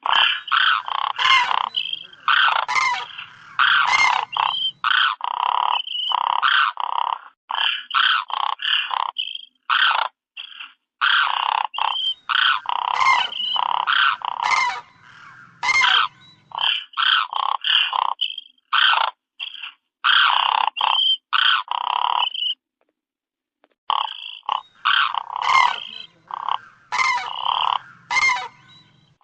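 A flock of cranes (koonj) calling: many overlapping calls in quick succession, with one brief break about three-quarters of the way through.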